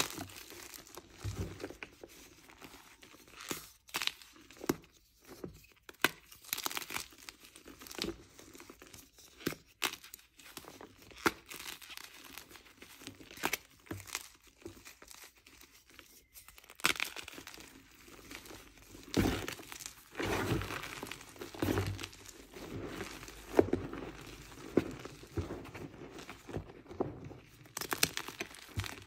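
Hands crushing and crumbling blocks of gym chalk in a bed of cornstarch: irregular crunches one after another, with the squeaks of cornstarch packed and squeezed in the fist.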